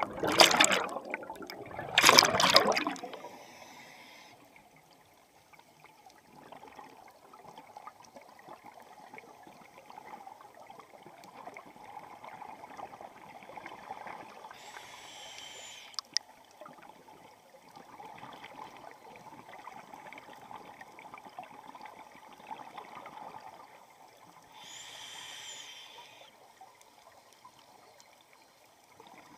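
Scuba divers' exhaled air bubbles rushing and gurgling loudly past an underwater camera, twice in the first few seconds. Then faint steady underwater noise, with two brief hisses about ten seconds apart.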